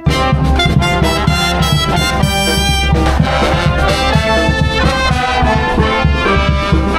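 Brass band playing, with trumpets and trombones carrying the tune.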